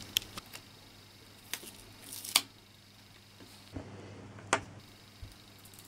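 Scattered light clicks and taps as a plastic auto-darkening filter cartridge and its battery holder are handled on a table, the loudest knocks about two and four and a half seconds in.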